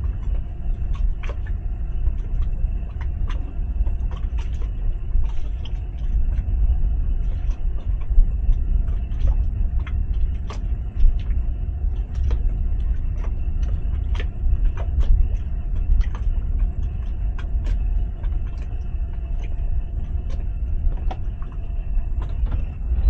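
Towboat's outboard motor idling as a steady low rumble with a faint steady hum above it, while scattered light clicks and knocks come and go throughout.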